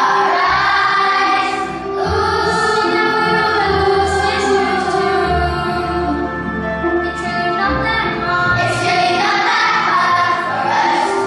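Background music with sung vocals over a sustained accompaniment and a low bass line.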